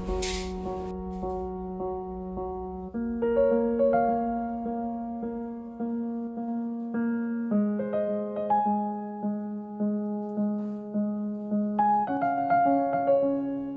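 Background piano music: soft chords repeated about twice a second, moving to a new chord every four seconds or so.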